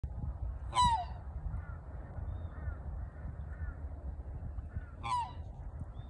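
Black swan giving two loud, short calls about four seconds apart, each dropping in pitch at the end. Fainter, more distant bird calls come about once a second in between, over a low rumble.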